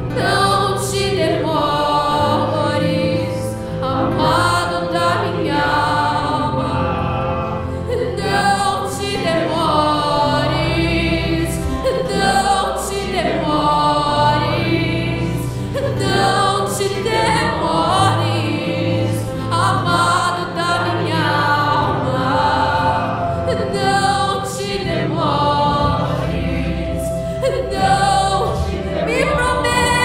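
Live worship song: a woman singing with acoustic guitar and electronic keyboard accompaniment, with a group of voices singing along.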